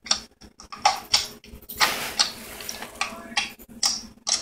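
Fingers squishing and pressing a wet, watery mixture in a glass bowl: irregular squelches and sharp little clicks, some of them against the glass, with one longer wet smear about two seconds in.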